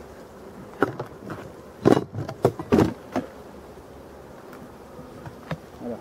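Black honeybees buzzing steadily around an open hive, with a burst of loud short knocks and rustles from about one to three seconds in as the wooden hive cover and plastic sheet are handled, and a couple more near the end.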